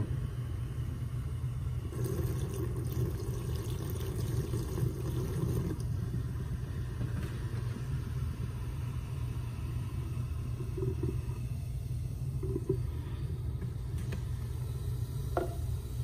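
Vinegar fizzing on baking soda in a garbage disposal drain, a faint foaming crackle under a steady low rumble.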